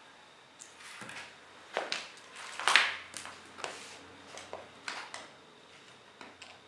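Irregular clicks and knocks in a small room, the loudest about three seconds in.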